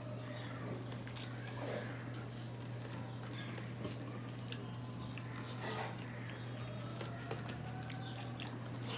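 Quiet eating sounds: scattered small wet clicks and smacks of chewing, over a steady low hum.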